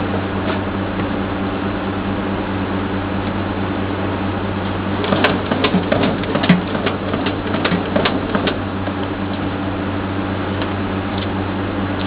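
Vacuumatic TCF friction feeder running with a steady motor hum. Starting about five seconds in, a quick run of sharp clicks lasts about three and a half seconds as cards are fed through one by one and counted.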